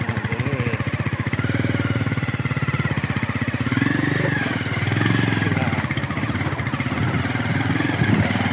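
A vehicle engine running steadily with a fast, even beat, its pitch and level rising and falling a little, around four and five seconds in.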